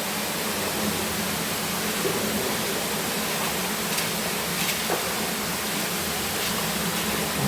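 Steady hissing noise spread evenly across all pitches, with a low hum underneath and a few faint clicks about four to five seconds in.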